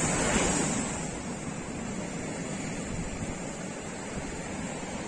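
Sea surf washing on the beach, with wind on the phone's microphone; a wave swells louder in the first second, then the wash goes on steadily.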